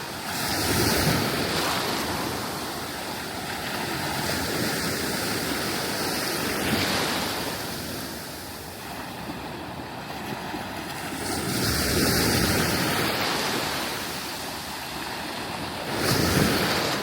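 Sea waves breaking and washing up a sandy beach, the surf swelling and ebbing in repeated surges, loudest about a second in, around twelve seconds in and near the end.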